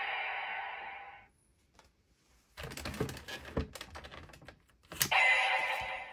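Electronic toy transformation belt's music fading out, then quick plastic clicks and rattles as the toy is handled and its parts are pressed or swapped. A sharp click about five seconds in sets off the belt's loud electronic standby music.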